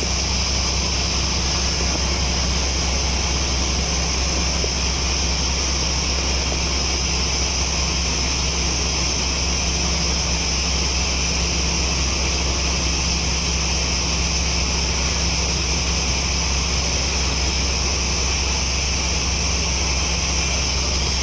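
A gear speed reducer and its drive motor running steadily: a constant low hum with a high whine over it, unchanging throughout.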